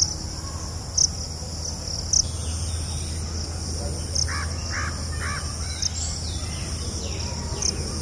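A steady high-pitched insect drone with sharp ticks every second or two, over a low hum. About four seconds in, a bird calls three times in quick succession.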